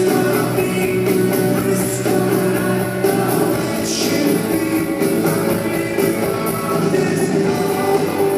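Live rock band playing a song with sung vocals, at concert volume.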